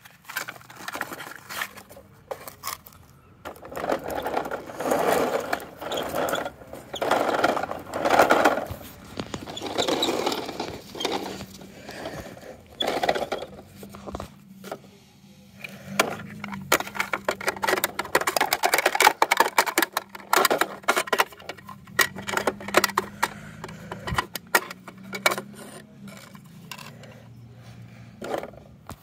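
Plastic toy garbage truck handled and pushed by hand: wheels scraping and rolling over pavement and dirt, with irregular clicks and clatter of its plastic parts.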